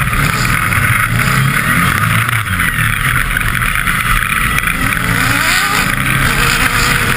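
Off-road race buggy's engine running, heard from a camera mounted on the car, with heavy wind and road noise; the revs climb about five seconds in as it rolls away at the start.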